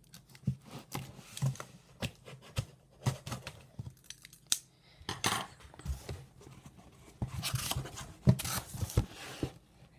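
Packing tape on a cardboard box being cut with a blade: a run of scraping clicks and knocks, then longer rasps of tape and cardboard as the flaps are pulled open in the second half.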